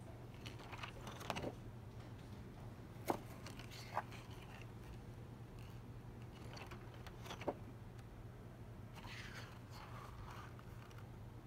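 Thick glossy card-stock pages of a spiral-bound wall calendar being handled and turned: soft paper rustles and a few sharp clicks, over a steady low hum.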